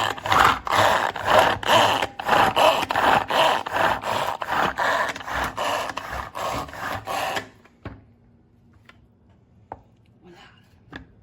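Manual pull-cord food chopper pulled over and over in a rapid run, each pull a rasping whir of the blades spinning through chopped onion in the bowl. The pulling stops about seven and a half seconds in, leaving a few faint clicks.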